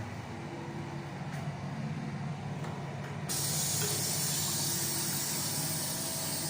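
Water from a restroom plumbing fixture starting abruptly as a high hiss about halfway through and running steadily for about three and a half seconds over a low ventilation hum.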